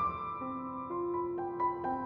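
Background piano music: a slow melody of struck notes that ring on and overlap.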